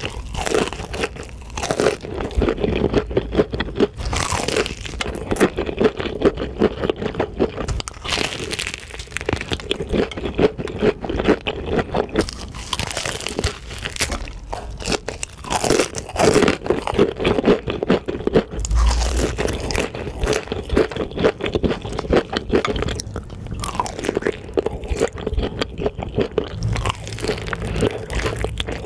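Crispy fried chicken being bitten and chewed close to the microphone: dense, rapid crunching of the fried crust that keeps going throughout.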